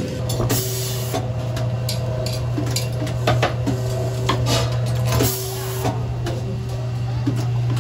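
Breakfast-shop kitchen at work: a steady low machine hum with scattered knocks and clinks of utensils, and two brief hisses, about half a second in and again a little after five seconds.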